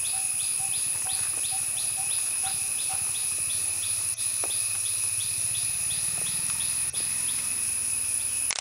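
Forest insects and birds: a steady high-pitched insect drone with a second steady tone beneath it, a chirp repeated about three times a second, and for the first three seconds a short, lower note repeated about twice a second.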